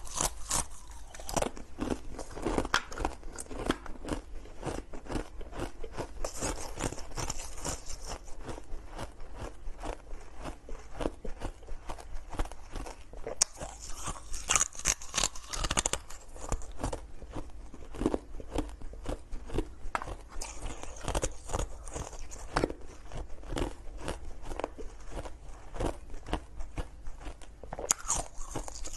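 A person biting and chewing hard ice close to the mouth: dense, irregular crunching and cracking, with spells of sharper, louder cracking about every seven seconds.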